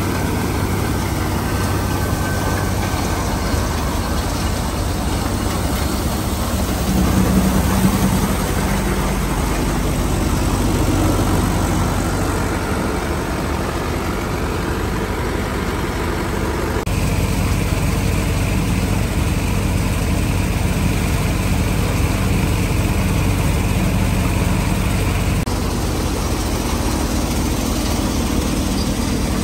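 Tractor-driven thresher running under power from a Sonalika DI-750 III RX tractor: a steady diesel engine drone with the thresher's drum and blower whirring as it threshes. The tone shifts abruptly twice.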